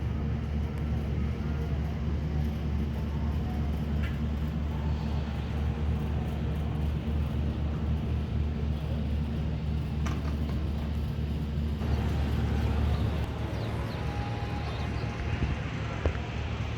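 An engine running steadily at low speed, a constant low hum; the deepest part of the hum fades about three-quarters of the way through.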